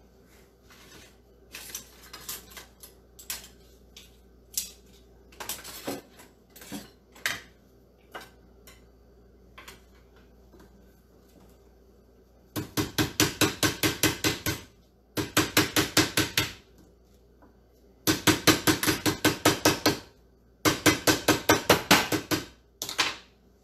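Meat mallet's pronged face pounding lemongrass stalks on a cutting board, bruising them to release their aroma. Scattered lighter knocks come first, then about halfway through four quick runs of blows at about six a second, each lasting around two seconds.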